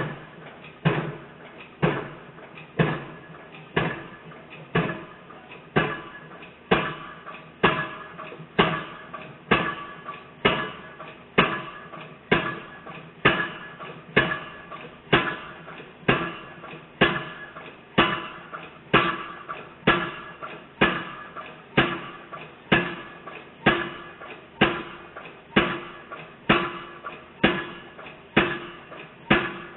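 Excavator-mounted piling hammer driving a tubular steel pile into the ground for railway overhead line foundations. It strikes a sharp, clanging blow about once a second, each blow ringing briefly. The hammering starts right at the beginning.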